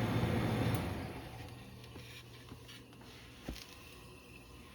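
A vintage dehumidifier's steady fan-and-compressor hum, which dies away over the first second or two. A single sharp click about three and a half seconds in.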